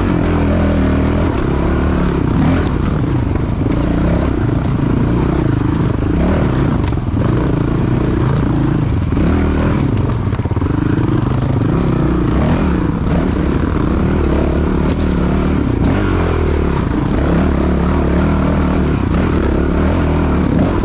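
Honda CRF450L's single-cylinder four-stroke engine running along a rocky trail, its pitch rising and falling as the throttle is opened and closed. Occasional knocks and clatter come from the bike going over rocks and roots.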